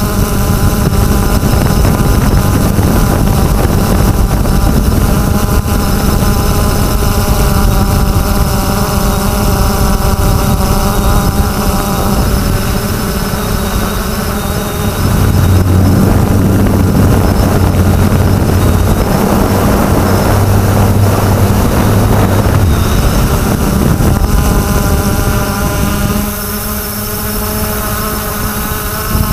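3DR Solo quadcopter's electric motors and propellers whining steadily, recorded from on board, over a heavy rush of wind and prop wash on the microphone. The rush swells about fifteen seconds in, then eases near the end as the whine stands out again.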